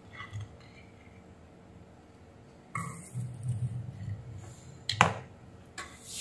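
Handling noise on a workbench: a low rumble with a few small clicks, and one sharp click about five seconds in.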